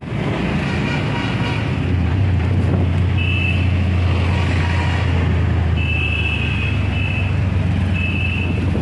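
Auto-rickshaw ride heard from inside the open passenger compartment: a steady low engine hum with road and traffic noise. Several short, high-pitched beeps come in from about three seconds in.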